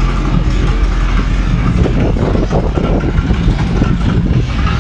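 A boat's engine running steadily while under way, a loud continuous rumble with water noise over it.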